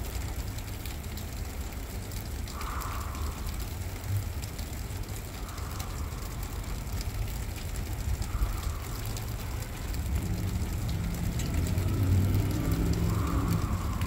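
Wind buffeting the microphone with a low, uneven rumble, with soft breaths about every three seconds.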